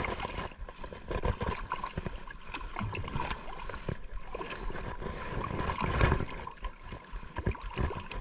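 Sea water lapping and gurgling against a small boat's hull, with irregular small clicks and knocks from handling a snapper on a lip gripper and unhooking a metal jig from its mouth; one louder knock about six seconds in.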